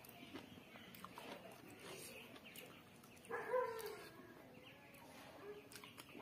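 Eating by hand: fingers squelching through curried chicken and rice, with chewing and lip-smacking as small wet clicks. About three seconds in, a short high, wavering whine sounds briefly over them.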